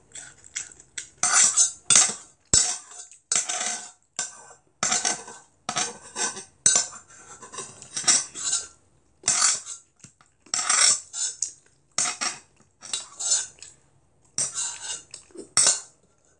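A spoon scraping and clinking against a pot in repeated short strokes, roughly one or two a second, as the last instant black-bean noodles are scooped up.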